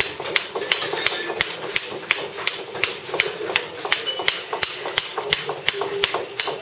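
Mallet tapping a mason's chisel along a Bath Stone block, taking waste off, in a steady rhythm of about three taps a second.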